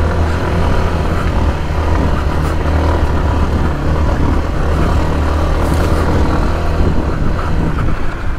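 Yamaha dirt bike engine running steadily while riding, at an even, unbroken level.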